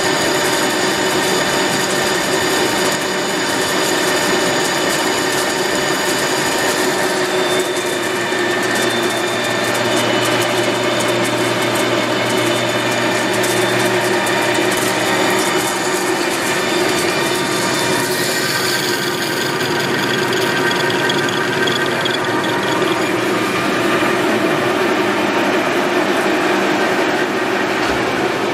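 Rockland 19-inch gear-head engine lathe running, with its 7.5 kW motor and spindle turning: a steady mechanical whine of several tones over a dense machine noise. The mix of tones shifts about eight seconds in and again near eighteen seconds.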